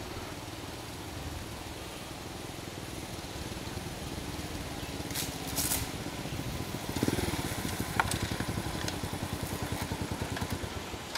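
A motor scooter's small engine running as it is ridden, its note shifting a little over halfway through.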